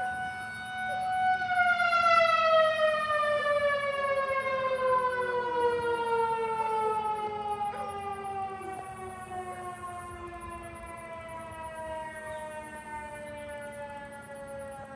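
Outdoor tornado warning siren sounding a steady tone, then winding down: about a second in its pitch begins a long, slow fall and the sound gradually fades.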